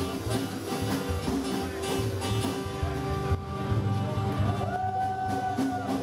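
A small live band playing amplified acoustic guitar, drums and electric guitar. A long held high note, bending slightly in pitch, comes in near the end.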